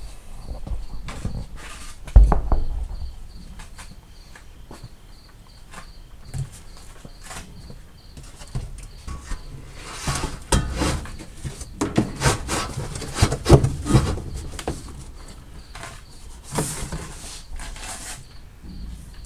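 A cricket chirping steadily in short, evenly spaced high pulses. Over it come knocks and a sharp thump about two seconds in, then a busy stretch of scraping and rustling, typical of cardboard being handled.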